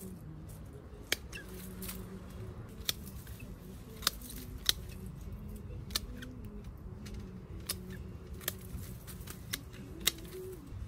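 A series of sharp, single clicks or snips, about nine spread irregularly across ten seconds, over a faint low background.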